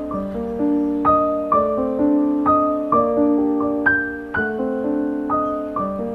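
Background piano music: gentle arpeggiated notes, one struck about every half second.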